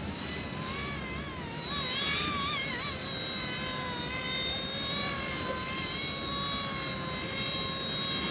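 Small remote-control helicopter's electric motor and rotors whining in flight, the pitch wobbling quickly up and down for a couple of seconds about a second in, then holding steady, over a low rushing noise.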